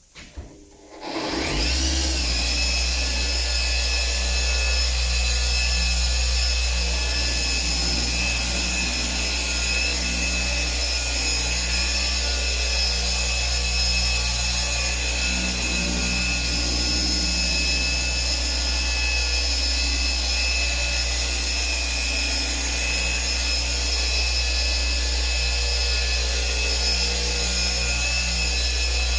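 Electric machine polisher with a foam pad and compound, starting up about a second in with a brief rising whine, then running steadily with a high motor whine as it buffs the car's paintwork.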